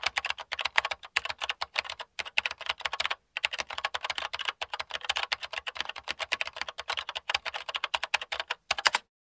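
Rapid computer-keyboard typing clicks, many a second, in quick runs broken by a few brief dead-silent gaps.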